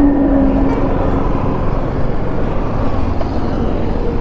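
Motorcycle riding along a highway: a steady rush of wind and road noise, with the engine underneath.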